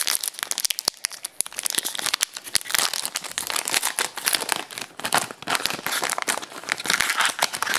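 A foil trading-card pack wrapper being torn open and crinkled by hand, a dense, irregular crackling throughout.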